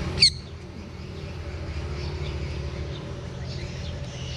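Sun conure giving one short, shrill call about a quarter second in, then fainter chirps over a steady low hum.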